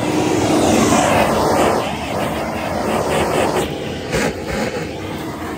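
Vacuum cleaner running, its hose nozzle sucking at the car's floor carpet under a seat: a steady motor whine with rushing air, a little louder in the first second or two.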